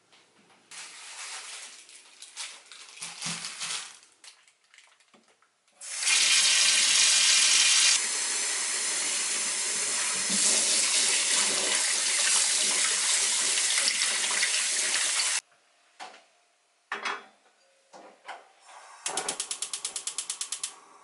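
Kitchen tap running into a bowl in a stainless-steel sink for about ten seconds, loudest at first, then shut off abruptly. A few handling knocks follow as a pot is set on the gas hob's grate, and near the end a quick run of even clicks, about eight a second, from the gas burner's igniter.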